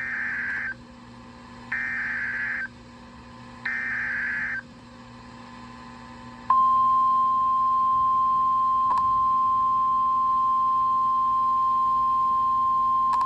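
NOAA Weather Radio alert signal: three short digital SAME header data bursts about two seconds apart, then, about six seconds in, the steady single-pitch 1050 Hz warning alarm tone, which carries on. Together they announce a new warning about to be read.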